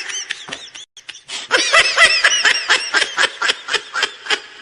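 High-pitched giggling laughter sound effect: rapid short snickers in two bouts, with a brief break about a second in.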